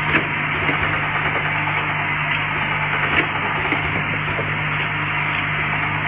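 YX-50G rotary filling, plugging and capping machine running: a steady mechanical hum and hiss with scattered light clicks as the turntable indexes and the heads work, the sharpest click about three seconds in.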